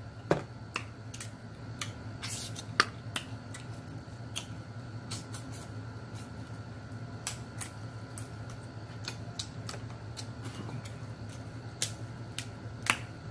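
Eating sounds from a seafood boil: sparse, irregular sharp clicks and cracks as shellfish shells are picked apart by hand and the meat is chewed, over a low steady hum.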